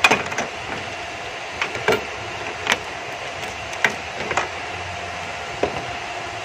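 Irregular light clicks and knocks of hand work on small plastic and metal parts, as a new vacuum switch valve is fitted into its mounting, over a faint steady hum.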